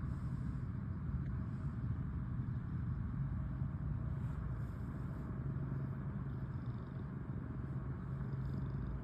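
Domestic cat purring close to the microphone: a steady, low rumble.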